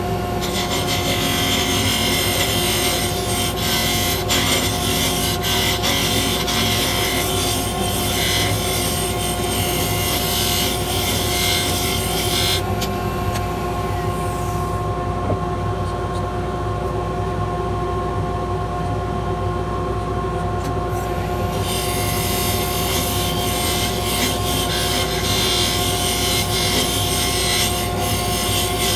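A 1/8 inch parting tool scraping and cutting a spinning spalted maple bangle blank on a mini lathe, turning the outside round, over the lathe's steady motor hum. The cutting stops for about nine seconds in the middle while the lathe keeps running, then starts again.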